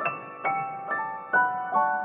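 Background music: a slow, gentle piano melody, one note struck roughly every half second, each ringing out and fading.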